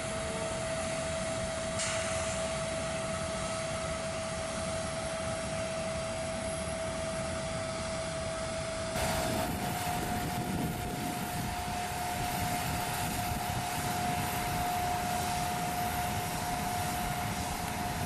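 Jet airliner running on the apron: a steady rushing noise with one constant high whine. About nine seconds in, the sound changes abruptly and the whine sits slightly higher.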